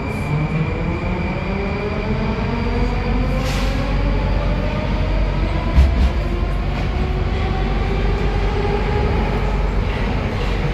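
81-740 metro train heard from inside the car while running in the tunnel: a steady rumble of wheels and tunnel under a motor whine of several tones rising slowly in pitch as the train picks up speed. One short thump comes about six seconds in.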